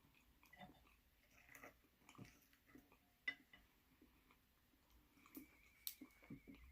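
Faint chewing and mouth sounds of a person eating seafood, with scattered small clicks and one sharp click about three seconds in. A faint, steady high whine sets in near the end.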